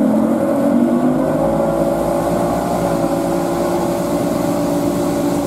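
Tow boat's engine pulling a barefoot waterskier up to speed. Its pitch is still rising in the first second or so, then it holds a steady run.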